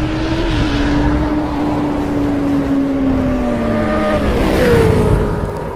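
Motorcycle engine sound effect running over a rushing noise. Its pitch sags about three seconds in, then it revs up to a higher note near the end.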